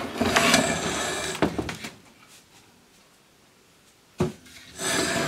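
A small desktop 3D printer being handled and set down on a wooden workbench: rustling handling noise with a click, a quiet moment, then a single sharp knock a little after four seconds in as it lands, followed by a burst of scraping as it is shifted on the bench.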